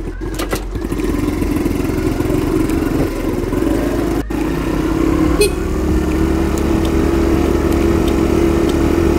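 Kingway WOWOW 100 scooter engine running steadily as the scooter rides off, with a brief break in the sound about four seconds in.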